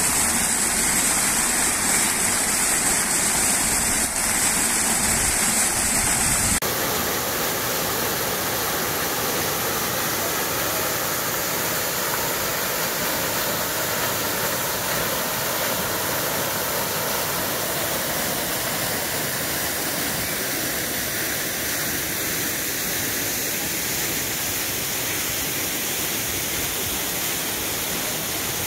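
Steady splashing of fountain water: jets falling back into a basin, then, after an abrupt change about six seconds in, water cascading over stone slabs into a pool.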